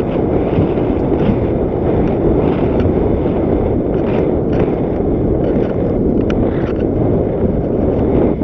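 Wind rushing over the microphone of a camera on a mountain bike riding down a dirt flow trail, mixed with the tyres rumbling over the dirt and scattered small clicks and rattles.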